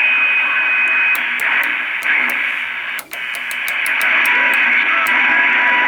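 A 1974–75 CB radio receiving through its speaker: steady band static with faint garbled signals, a steady whistle for the first second, a string of sharp clicks and a brief drop-out about three seconds in.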